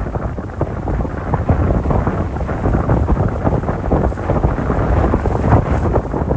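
Strong typhoon wind buffeting the microphone: a loud, gusting rumble that surges and drops unevenly.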